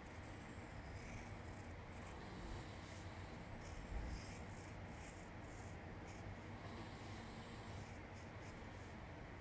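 Faint scratching of a pencil drawing on paper, in short strokes that start and stop, with a soft low thump about four seconds in.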